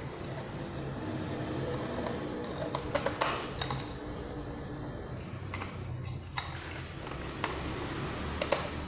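Screwdriver tightening a screw and nut in a stand fan's plastic pole housing: scattered clicks and scrapes of metal on plastic, the loudest cluster about three seconds in.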